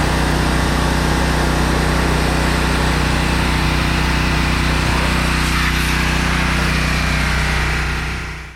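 Power washer running steadily: a small engine with a hiss of spray over it, fading out just before the end.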